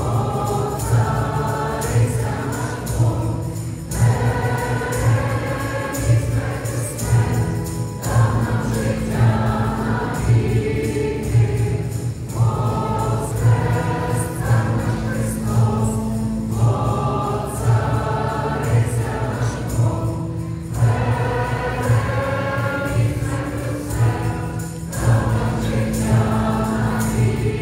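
Church choir singing an Easter hymn in phrases of a few seconds, over a steady low sustained note.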